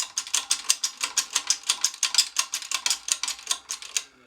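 Ratchet wrench clicking quickly and steadily, about six or seven clicks a second, stopping about four seconds in: it is cranking a press to push a new bushing into a front control arm.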